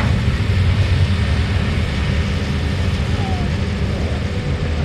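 Low, steady rumble of heavy diesel engines, led by a John Deere tracked excavator working under load as it drags a stuck mud truck through the bog.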